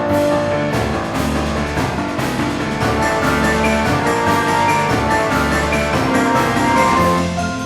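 Background music with a steady drum beat and pitched instrumental notes.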